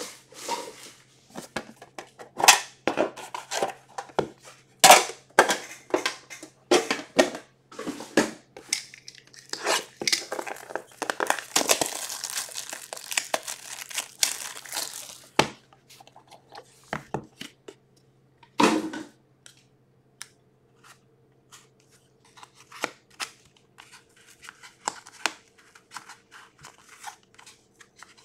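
Hands unwrapping a boxed trading-card pack: clear plastic shrink-wrap crinkles and tears, most densely from about twelve to fifteen seconds in, among sharp handling clicks of the tin and cardboard box. A duller knock comes near nineteen seconds, then quieter handling.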